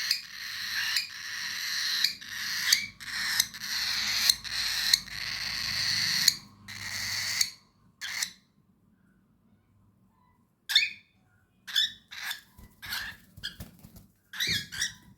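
Cockatiel calling: a run of harsh, repeated calls, each about half a second long. After a pause of a few seconds comes a string of shorter, sharper chirps near the end.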